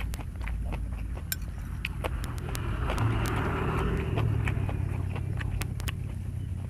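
A road vehicle going past, its engine and tyre noise swelling to a peak about three to four seconds in and then fading, over a steady low hum. Crisp clicks of someone chewing crunchy food run through it.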